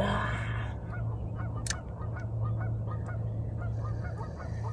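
Geese honking: a rapid run of short, repeated honks, a few a second, after a brief rush of noise at the start.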